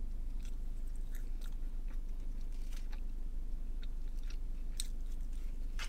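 A person chewing a mouthful of food, with scattered soft mouth clicks, over a steady low hum.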